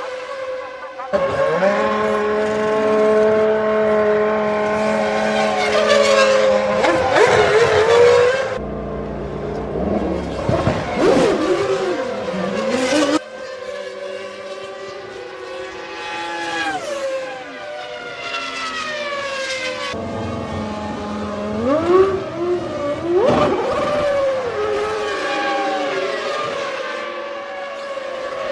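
Formula One car engines at high revs, their pitch holding and then dropping and climbing with gear changes and braking, across several abruptly cut shots.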